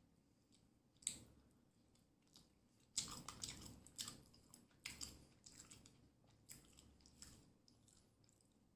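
A person chewing and biting food close to the microphone: one sharp bite about a second in, then steady chewing with crisp clicks from about three seconds in that slow down near the end.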